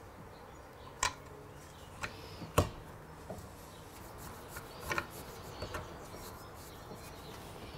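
A steel saw blade being fitted into its wooden handle by hand: a handful of separate sharp clicks and knocks of metal against wood, the loudest about two and a half seconds in.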